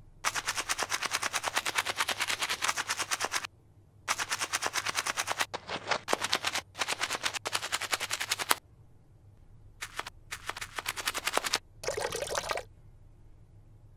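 Small stiff brush scrubbing a rusty sheet-metal box in a tub of cleaning solution: rapid back-and-forth strokes in three long runs with short pauses between. Near the end comes a brief, duller scrub with the brush in the soapy liquid.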